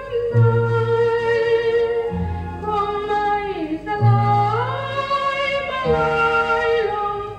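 A woman singing a slow Thai song in long, held notes with slow glides between pitches, over a low bass note about every two seconds, played back from a vinyl record on a turntable.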